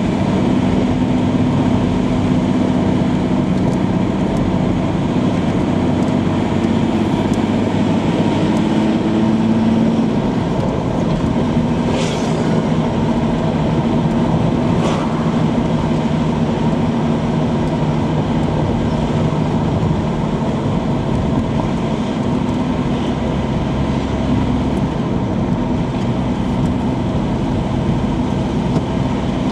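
Car engine and tyre noise from inside a moving car, a steady drone whose engine note drops in pitch about ten seconds in. Two brief clicks come a few seconds later.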